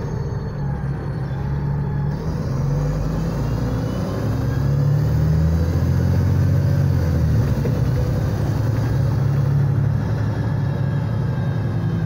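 Engine and drivetrain of a Volvo 7700A articulated city bus, heard inside the passenger cabin while the bus is under way. A steady low drone gets louder a few seconds in, and its pitch shifts in steps several times, with road noise underneath.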